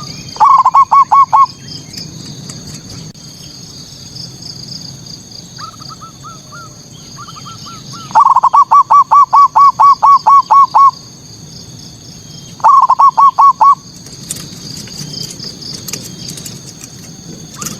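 Zebra dove (perkutut) cooing in rapid runs of short, evenly repeated notes: a short run just after the start, a longer run of about a dozen notes in the middle, and another short run soon after, with softer notes in between. This is the male's 'manggung' song, used to provoke rival doves. A continuous high chirping runs underneath.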